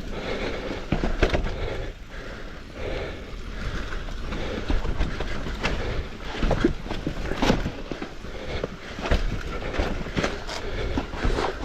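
Mountain bike riding down a rough, rooty dirt trail: tyres rolling over dirt and roots, with frequent sharp knocks and rattles from the bike over the bumps, under wind rumble on the microphone.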